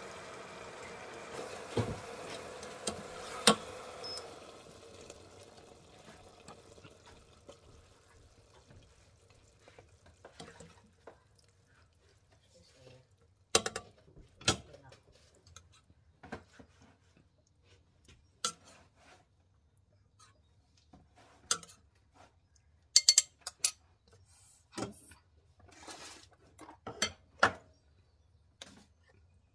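Spoons and a plate clattering and scraping against a stainless steel cooking pot and dishes, in scattered sharp knocks, as food is scraped into the pot and served. A steady hum and a couple of knocks in the first few seconds fade out before the clatter begins.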